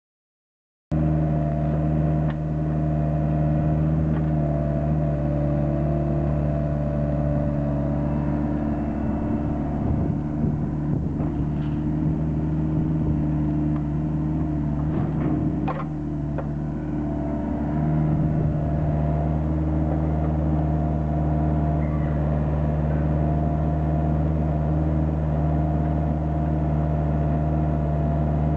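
A large engine running at a steady speed, with a few sharp cracks and knocks in the middle. Its note dips briefly about sixteen seconds in, then steadies again.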